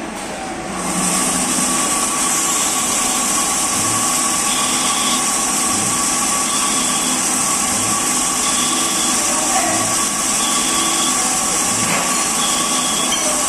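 CNC lathe cutting a 1/2-inch BSP thread in a cast part. The machine steps up to full running about a second in, a steady hiss with a held tone. A short sound recurs evenly about every two seconds, the rhythm of repeated threading passes.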